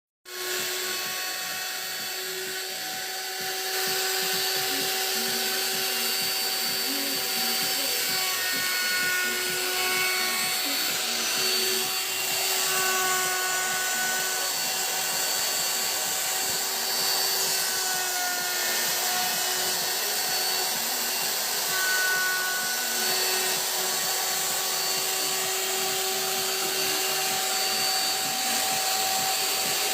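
Woodworking lathe running steadily with a motor whine and the hiss of cutting, shaping a wooden blank into a baluster; it gets louder a few seconds in.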